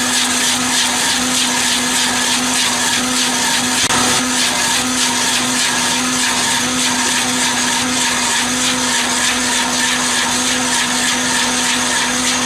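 Forestry shredding machine running steadily: a constant machine hum under a dense, fast grinding rattle as wood is chewed up.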